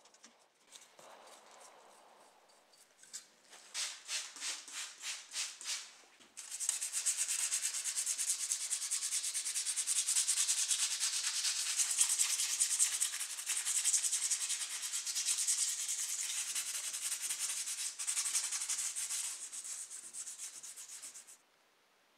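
Small brass wire brush scrubbing the bare metal body of a model car, clearing off paint loosened by paint remover. First come a few separate strokes, about two a second; then, from about six seconds in, fast continuous scrubbing that cuts off suddenly near the end.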